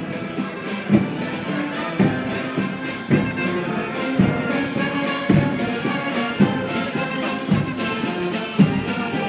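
Marching band of brass and drums playing a march in the street: sustained brass notes over a bass drum beating about once a second.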